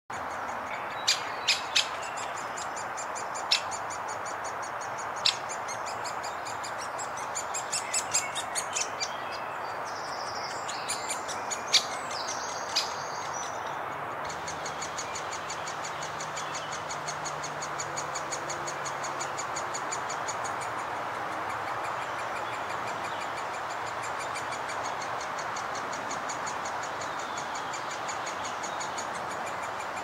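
Woodpecker nestling begging from its nest hole: a fast, continuous, high-pitched chatter of repeated notes. In the first half, sharp, loud single calls stand out over it. A steady hiss runs underneath throughout.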